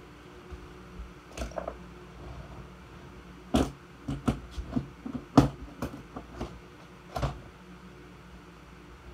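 A string of irregular knocks and clicks, about a dozen, the loudest near the middle, over a faint steady hum.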